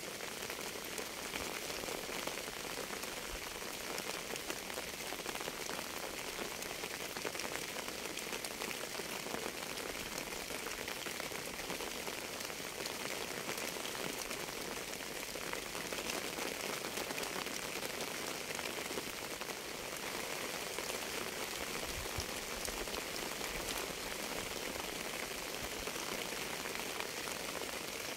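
Steady rain falling on a surface: an even hiss with many fine drop taps, unchanging throughout.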